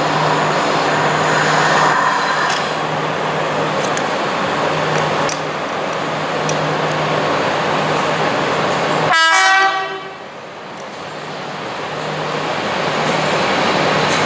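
Passing train running with a steady loud rumble and rail noise. About nine seconds in, the train horn gives one short blast. Right after the blast the noise drops sharply, then builds up again.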